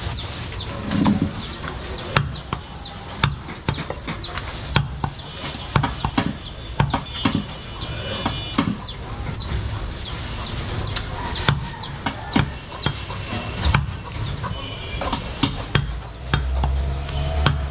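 Butcher's chopper and knife striking goat meat on a wooden log chopping block, giving sharp knocks at irregular intervals. Behind them a bird gives short falling chirps about twice a second, with a few pauses.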